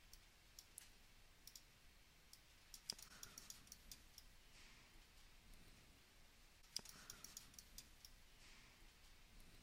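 Faint, scattered clicks of a computer mouse and keyboard being worked, with two slightly sharper clicks, one about three seconds in and one near seven seconds.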